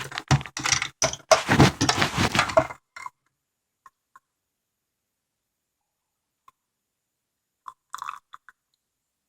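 Close crunching and rustling handling noise with quick knocks on the phone's microphone for about three seconds, then cuts off, followed by a few faint clicks.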